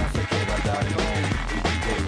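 Electronic soundtrack music with a fast drum-and-bass beat and a pulsing bass line.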